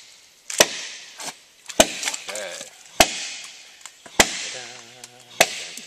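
Blade blows chopping into a rotting mangrove log, one sharp strike about every 1.2 seconds, each trailing off in a short hiss, to split the wood open for shipworms.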